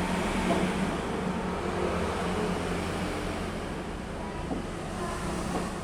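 Steady motor-vehicle rumble like road traffic, with a constant low hum, slowly getting a little quieter.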